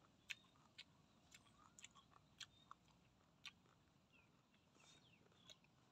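Faint, scattered mouth clicks and smacks of a person chewing and sucking snails from their shells.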